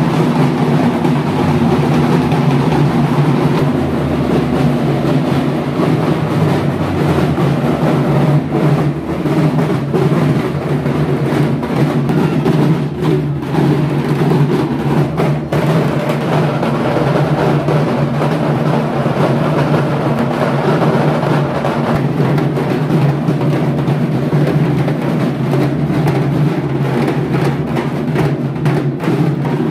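A band of large barrel drums (dhak) beating continuously at a fast, dense rhythm.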